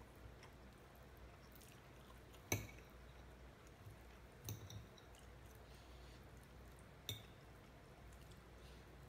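Metal fork clicking against a ceramic plate as chicken meat is picked off the bone: a sharp click about two and a half seconds in, a quick double click around four and a half seconds, and another near seven seconds, over near-silent room tone.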